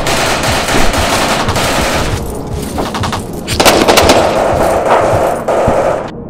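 Rapid, sustained battlefield gunfire, a dense stream of shots. There is a brief lull a little after two seconds, it is loudest in the second half, and it cuts off suddenly about six seconds in.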